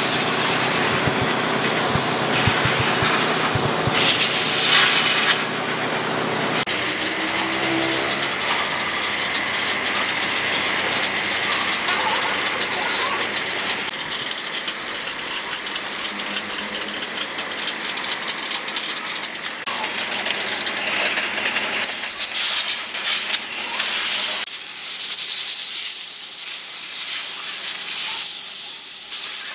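Water spraying with a steady hiss: a pressure-washer jet on a bare cast engine block and hose water running over small metal engine parts.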